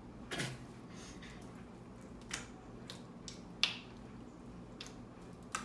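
Jelly cube slime being poked and pressed with fingertips, giving a handful of sharp little pops at irregular intervals, the loudest a little past halfway.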